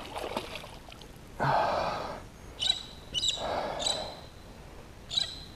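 A man breathing out hard twice in breathy huffs, with a few short high squeaks in between.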